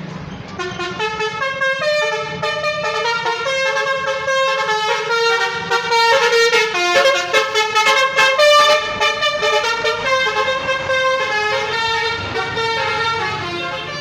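Bus basuri 'telolet' multi-tone horn playing a melody of stepping notes, over the low rumble of the bus engine. It starts about half a second in and is loudest between about six and nine seconds in.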